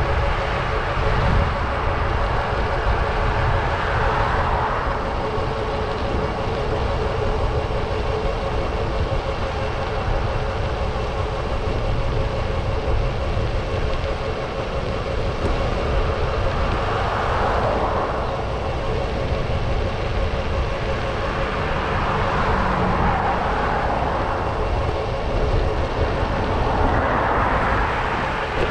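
City street traffic: motor vehicles passing one after another, swelling and fading about four times, over a steady low rumble of wind on the microphone of a moving bicycle.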